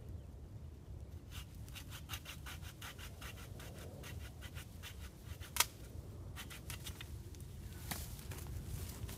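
Laplander folding pruning saw cutting through green tree branches: a quick run of strokes at about five a second, a single sharp crack about halfway through, and a few more strokes near the end.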